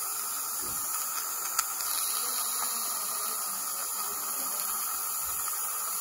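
Steady hiss of dental suction drawing air through the tubing of a Nola dry-field retractor, with a faint click about one and a half seconds in.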